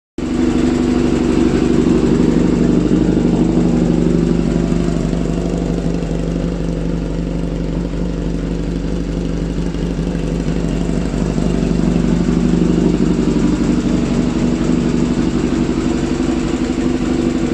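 Kawasaki 750 four-cylinder motorcycle engine idling steadily through a carbon-fibre end can, its carburettors re-jetted with larger 42 pilot jets.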